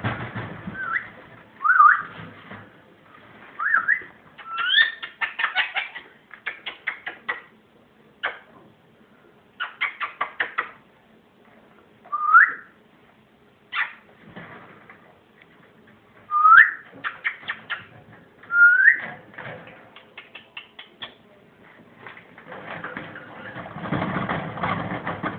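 Indian ringneck parakeet calling: short rising whistles alternating with quick runs of rapid stuttering notes, the chattering its owner calls laughing.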